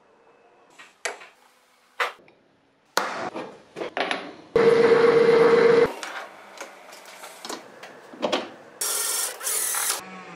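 Metal parts being handled, with clinks and knocks. About halfway in, a drill press runs for just over a second with a steady tone while drilling into a metal disc, followed by more taps and a short burst of high-pitched noise near the end.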